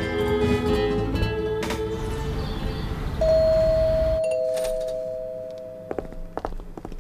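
Two-tone ding-dong doorbell: a higher note, then a lower one about a second later, both ringing on for a couple of seconds. Before it, plucked-string score music fades out; after it, footsteps on a hard floor.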